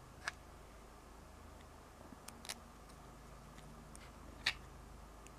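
A few faint, sharp clicks of small quadcopter frame parts and screws knocking together as the boom arms are fitted into the main frame's slot, the loudest about four and a half seconds in.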